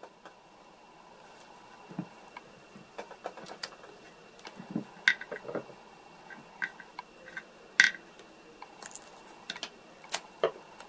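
Scattered small clicks and taps of hands handling small craft parts, a pink amulet piece and a small metal bolt, on a wooden workbench, with a few sharper ticks near the middle and end.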